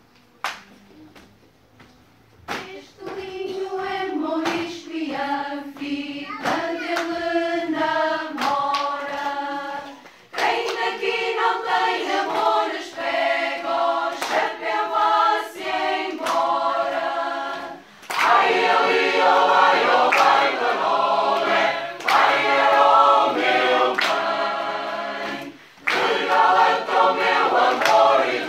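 Mixed choir singing a traditional Portuguese folk song. The singing begins about two and a half seconds in, softer at first, grows louder and fuller about ten seconds in, and moves in phrases with short breaks between them.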